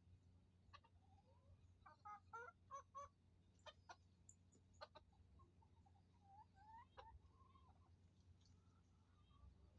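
Hens clucking quietly. A quick run of short, sharp clucks comes about two to five seconds in, then a few soft, wavering calls.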